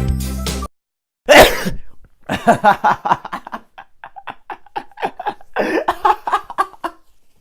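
Background music cuts off, then one loud sneeze about a second in, followed by several seconds of choppy laughter.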